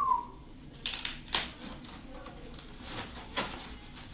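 Monitor packaging being handled: a brief falling squeak at the start, then a few sharp crinkles and knocks of cardboard, foam or plastic wrap.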